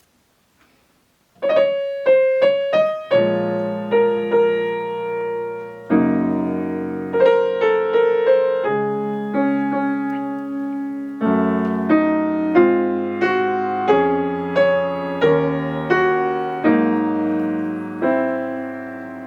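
Piano playing solo, coming in about a second and a half in with a few quick repeated notes, then a slow melody over chords.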